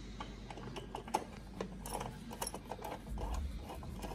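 Light, irregular metallic clicks and ticks of a loose hex socket being turned by hand on a 6 mm bolt as it is hand-threaded into a luggage-rack bracket.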